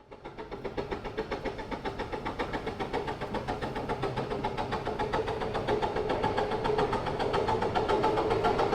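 A 15-inch-gauge steam locomotive running with a fast, even beat of about five a second, growing steadily louder as it approaches.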